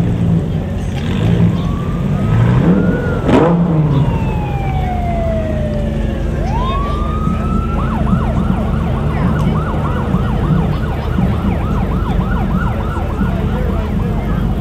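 Emergency vehicle siren sounding a slow wail that rises, then falls. About halfway through it switches to a rapid yelp. A low engine rumble runs underneath, and there is a sharp click about three and a half seconds in.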